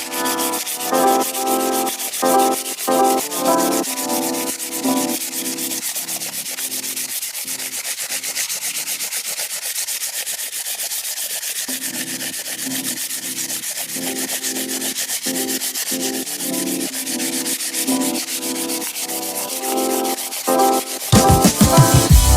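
Abrasive sanding of a metal key, a steady rasping hiss.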